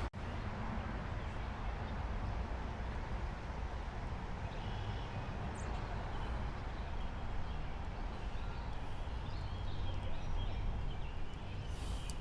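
Steady outdoor rushing noise, heaviest in the low end, with a few faint short high chirps. The sound cuts out for an instant just after the start.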